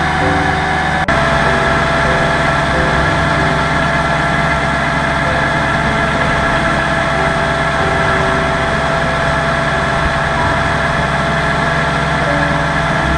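Motorcycle engine running at steady revs, a constant drone. There is a brief click about a second in, where the pitch steps slightly lower.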